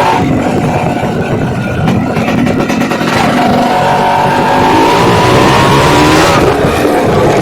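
Suzuki Samurai's two-stroke single-cylinder motorcycle engine running under way off-road. It revs up steadily from about three seconds in, its pitch climbing, then drops back near the end as the throttle is eased.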